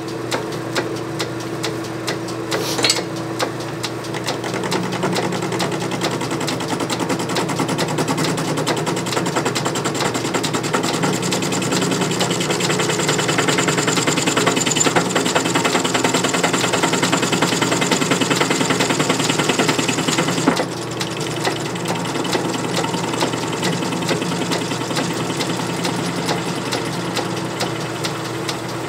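Metal lathe taking a hand-fed interrupted cut: the cutting tool strikes the workpiece in a rapid, even clatter over the steady hum of the spindle. The cut grows louder a few seconds in, then drops away suddenly about twenty seconds in, leaving the lathe running.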